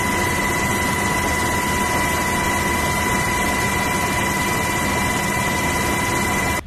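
Inside a military helicopter's cabin with the side door open in flight: steady loud rush of rotor and engine noise with a steady high whine over it.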